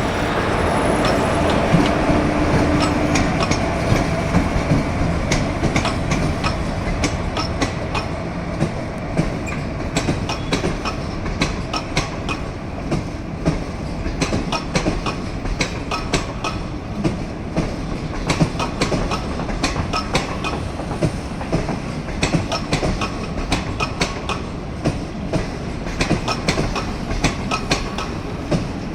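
Passenger express train rolling out of a station, its coach wheels clicking rapidly and steadily over the rail joints over a continuous low rumble. A few steady tones sound under the rumble for the first few seconds.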